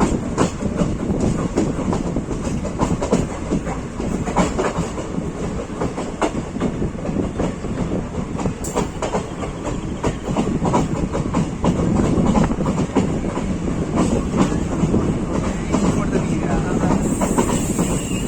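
Alco WDG3A diesel-electric locomotive running as a light engine, its diesel engine humming steadily while its wheels click and clack over the rail joints. A thin high whine joins near the end.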